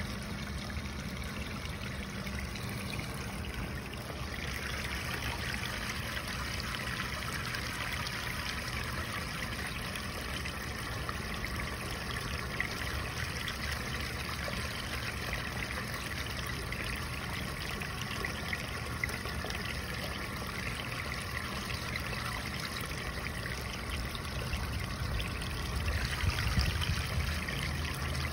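Dirty carpet-cleaning waste water pouring from a hose's PVC pipe end into a floor drain, splashing steadily through the drain grate, with a steady low hum underneath. The flow grows louder about four seconds in.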